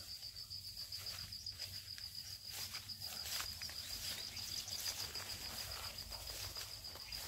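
Cricket trilling steadily in a high, evenly pulsing note, with faint scattered clicks beneath it.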